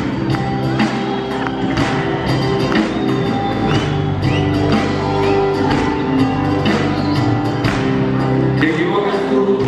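Live band music with a steady drum beat: guitars, bass and drum kit playing together.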